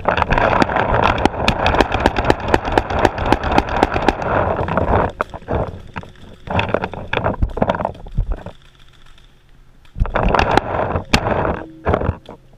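Rapid popping of paintball markers firing, over close rustling and scuffing of grass and gear against the helmet camera. The noise drops away in a short lull about two-thirds through, then the popping and rustling pick up again.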